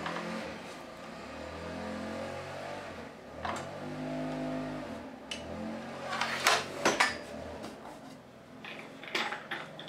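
Evolution Rage 3 sliding mitre saw, not running, being lowered onto the jig and lifted again by hand to line the blade up with the work: a few sharp knocks and clicks from the saw head and jig, about three and a half seconds in and twice more around six and a half to seven seconds, over a low hum.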